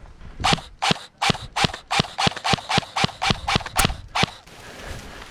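Airsoft gun firing a string of about a dozen single shots, roughly three a second, stopping a little after four seconds in.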